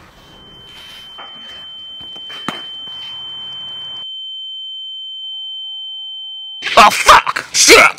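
A steady high-pitched ringing tone, the ear-ringing sound effect used for a dazed hit, swelling slowly over several seconds with a fainter lower tone joining near the end. It cuts off suddenly when loud voices break in.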